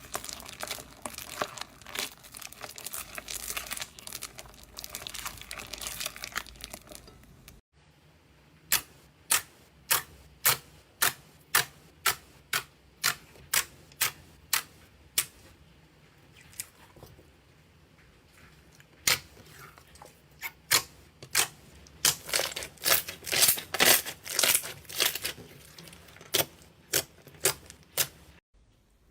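Slime being squeezed and pressed by hand: a dense crackling for about seven and a half seconds, then, after a cut, sharp clicking pops about two a second, and later a faster run of clicks and pops before another cut.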